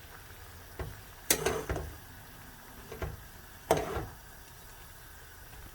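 A spoon stirring soup ingredients in a cooking pot, knocking and scraping against the pot about four times.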